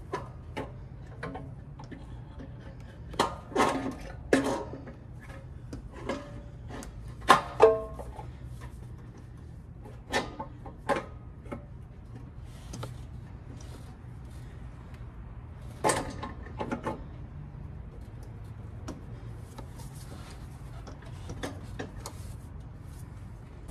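Metal clinks and knocks of a cast exhaust manifold with its catalytic converter being worked onto the cylinder-head studs. The clinks are irregular, some ringing briefly, with the loudest clusters about three, seven and sixteen seconds in, over a low steady hum.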